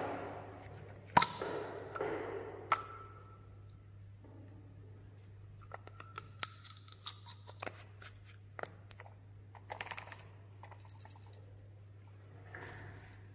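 A plastic candy-dispenser tube being handled and pulled apart: two sharp plastic clicks in the first three seconds, then scattered light clicks and short rustles of plastic. A faint steady low hum sits underneath.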